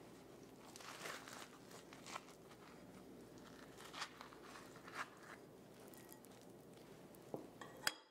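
Metal spoon scraping roasted spaghetti squash flesh out of its skin into a ceramic bowl: faint soft scrapes and rustles, with a few sharper clinks near the end.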